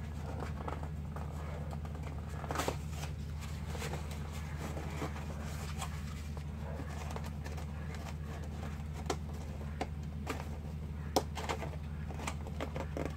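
Cardboard being pressed and worked by hand: scattered light crackles and clicks, with a few sharper snaps, the loudest about eleven seconds in, over a steady low hum.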